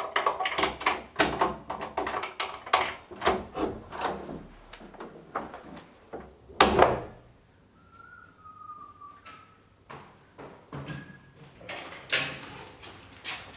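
A door being worked: a quick run of clicks and knocks from the latch and handle, then the door shutting with one loud knock about seven seconds in. Softer clicks follow near the end.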